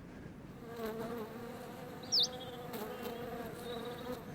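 Longhorned bee buzzing in flight: a steady, slightly wavering hum that starts just over half a second in. A single short, high bird chirp cuts in about two seconds in and is the loudest sound.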